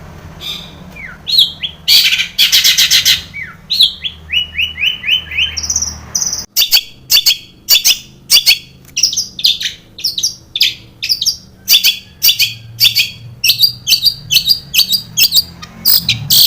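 Long-tailed shrike singing a varied, mimicry-filled song: falling slurred whistles and a dense rattling chatter, then a run of short notes. After a sudden change about six and a half seconds in, it goes into a fast string of sharp repeated notes.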